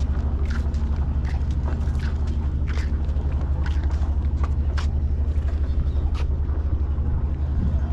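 A large engine running steadily with a low, even throb, with scattered light clicks over it.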